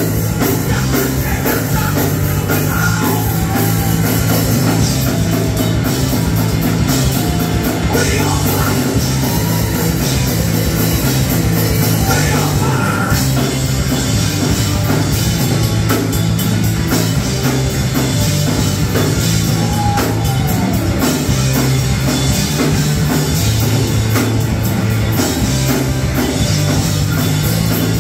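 Punk rock band playing live at full volume: distorted electric guitar, bass and a pounding drum kit, with a singer's voice in the mix.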